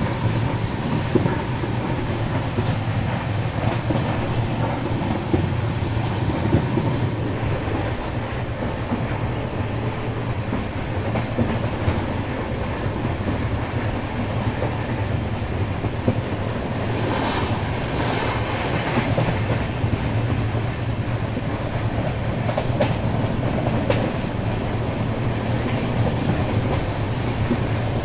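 Express train running along the track: a steady rumble with the clickety-clack of wheels over rail joints and occasional sharper clacks.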